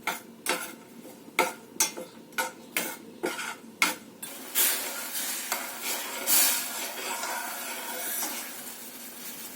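A spoon stirring jaggery and water in a pan on a gas flame, clinking and scraping against the pan about twice a second. About four seconds in, the stirring gives way to a steady sizzle as the water heats and the jaggery starts to melt.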